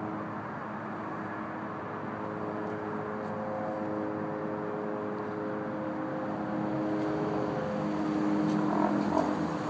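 Steady vehicle engine hum with several held tones, slowly growing louder and peaking briefly near the end.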